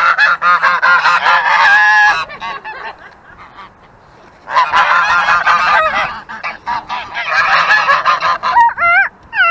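Domestic geese honking loudly in two long, rapid bouts, the first lasting about two seconds and the second starting about four and a half seconds in.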